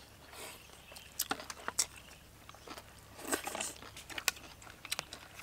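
People chewing and crunching food, including crisp shredded cabbage salad, with scattered short clicks of chopsticks against plates and a busier stretch of chewing about three and a half seconds in.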